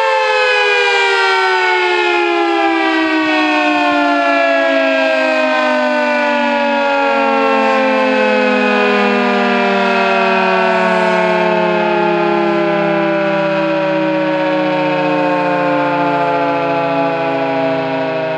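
Federal Signal 3T22 three-tone outdoor warning siren sounding its chord loudly, the whole chord sliding steadily lower in pitch as the siren winds down.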